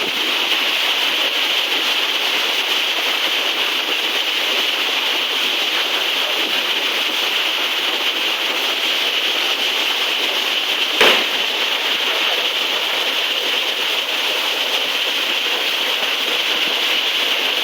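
Steady rush of a waterfall pouring into a pool. One sudden sharp knock about eleven seconds in.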